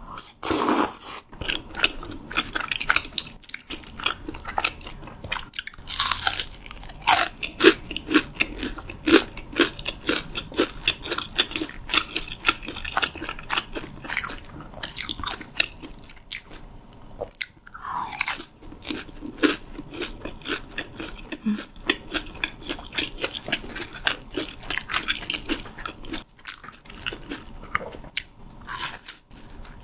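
Close-miked eating of spicy tteokbokki and fried sides: crisp crunching bites and steady chewing, with a few louder bites spread through.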